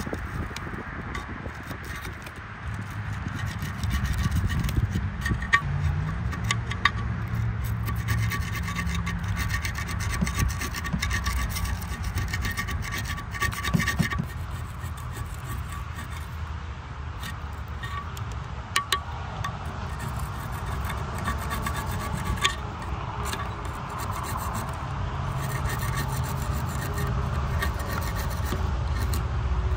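Rust and grime being scrubbed off a corroded metal box with an abrasive tool: steady rubbing and rasping, with a few sharp clicks along the way.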